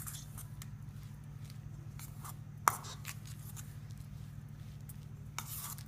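A spoon stirring a sticky mixture of desiccated coconut and condensed milk in a bowl: faint scraping and soft knocks, with one sharp clink against the bowl about two and a half seconds in. A steady low hum sits underneath.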